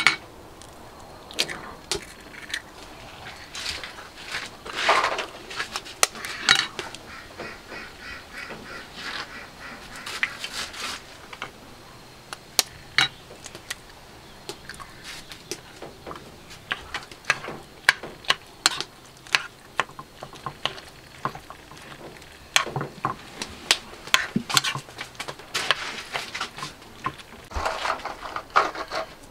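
Metal spoon clicking and scraping against a bowl as eggs are cracked in and stirred into minced pork, with short sharp taps throughout. Ducks quack in the background several times.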